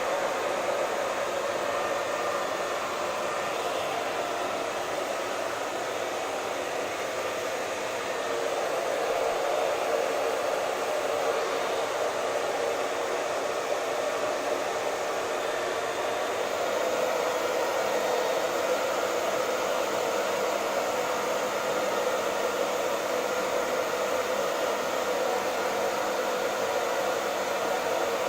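Hair dryer running steadily: an even rushing whoosh of air from its fan, with a faint steady whine.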